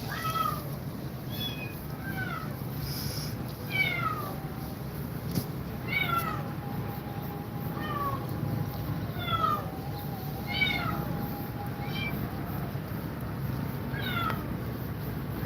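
A cat meowing over and over, in about ten short, high-pitched meows that fall in pitch, one every second or two.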